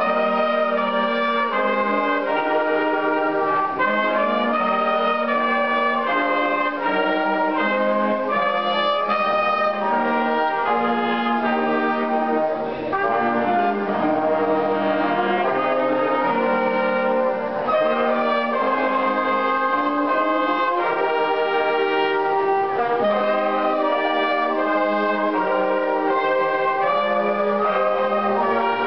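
A small wind band of flutes, clarinets, trumpet, trombones and low brass playing together, held chords moving from one to the next about every second.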